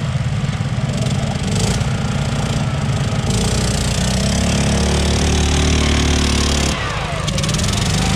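Wheel Horse garden tractor engine running, held at steady, higher revs from about three seconds in, then dropping back shortly before the end.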